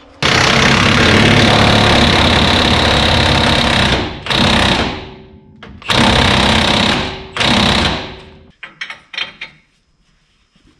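Impact wrench rattling in bursts as it runs bolts tight on the truck's front suspension: one long run of about four seconds, then three shorter runs, stopping about eight seconds in, followed by a few faint metal clinks.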